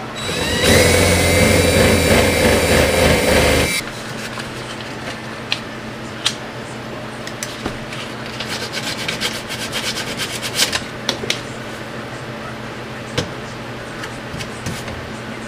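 Power drill spinning up and boring through a plastic sink drain pipe for about three and a half seconds, its whine rising and then holding steady until it stops suddenly. Then 150-grit sandpaper rubs the edges of the drilled hole by hand to deburr it, a scratchy rubbing in quick strokes with a few clicks.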